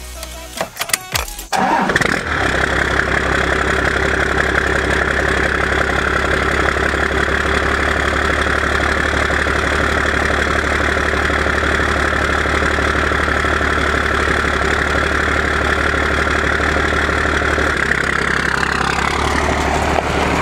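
First-generation Dodge Ram's 5.9-litre 12-valve Cummins inline-six turbo diesel cranking briefly and catching about a second and a half in, then idling steadily. Near the end the truck pulls away and its sound drops in pitch as it moves off.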